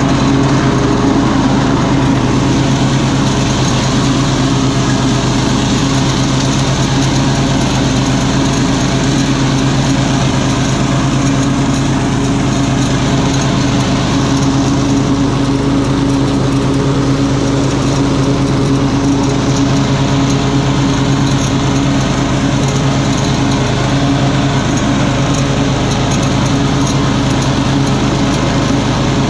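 A 30-inch walk-behind lawn mower's engine running steadily at full speed while it cuts grass and mulches leaves.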